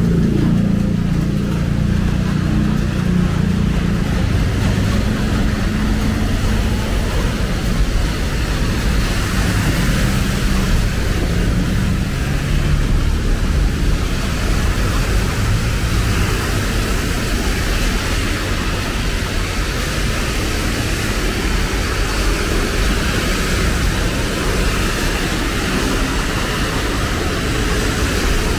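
Steady traffic on a rain-wet multi-lane road: engines of cars and motorbikes with tyres hissing on the wet asphalt. A motor scooter's engine is close and loudest in the first few seconds, then fades into the general traffic.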